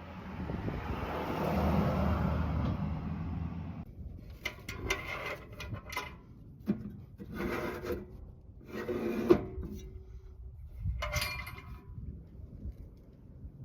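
A steady rushing noise that cuts off abruptly about four seconds in, then a series of about five short scraping and rubbing strokes, one with a sharp click.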